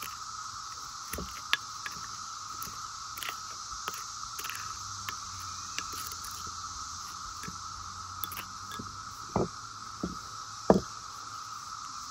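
Cicadas buzzing steadily in the background, with a measuring spoon scraping and clicking against a glass bowl as sugar and lemon are stirred and pressed. A few louder knocks come about nine to eleven seconds in.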